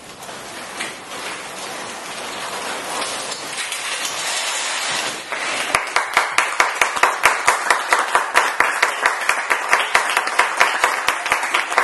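Theatre audience applauding in the blackout at the end of the show, the clapping building, then about halfway through taking on a steady beat of sharp claps, about three a second.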